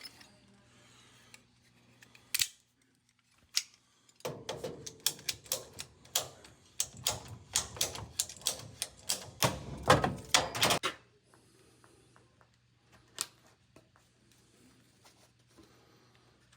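Rapid, irregular run of sharp clicks and clacks, like hand tools working on a fitting, from about four to eleven seconds in, with a few single clicks before and after. A faint steady low hum runs under it.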